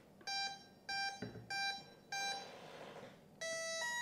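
The electronic speed controller of a 64mm EDF jet is powering up and beeping through the fan motor. It gives four short beeps of one pitch, about 0.6 s apart, then a rising two-note tone near the end, signalling that the ESC has started and is armed.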